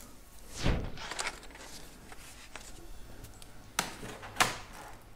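Plastic laptop casing parts being handled and lifted apart: a brief scraping rustle about half a second in, a few light clicks, then two sharp plastic knocks near the end.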